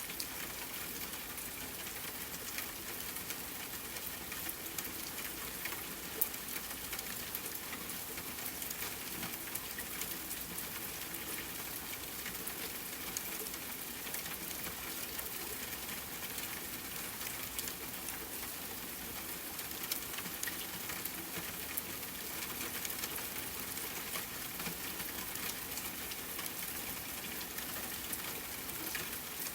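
Steady rainfall mixed with a crackling fireplace fire, small scattered pops throughout and a sharper pop about six seconds in.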